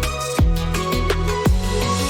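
Electronic background music with a steady beat of deep, pitch-dropping kick drums under sustained synth tones.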